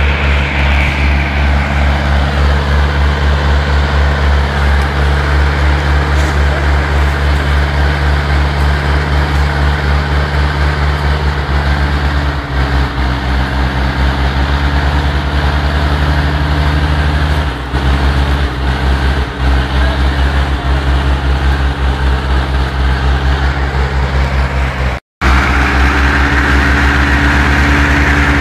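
Small tractor engine running with a steady pulsing beat, its note shifting as it works down a steep track. It cuts out for a moment near the end, then runs on steadily.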